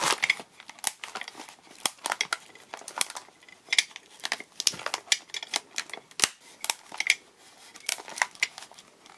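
Glued plastic housing of a power adapter, wrapped in paper, squeezed along its seams with large steel pliers: a run of irregular sharp cracks and clicks as the glued seam is forced, with some paper crinkling.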